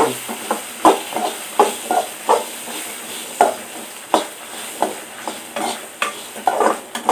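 Slotted steel spatula stirring and scraping whole spices (coriander seeds, cumin, fennel, cloves), dried red chillies and small shallots around a metal kadai. They are roasting in a little hot oil, with a light sizzle under about two irregular scrapes a second.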